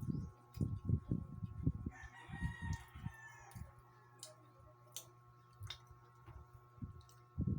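Close-up chewing and crunching of food in repeated bursts. A rooster crows once in the background, starting about two seconds in and lasting about a second and a half.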